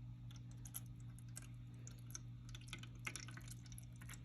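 Faint, irregular drips and small ticks of water in a refrigerator's defrost drain, which is clogged and not draining. A steady low hum runs underneath.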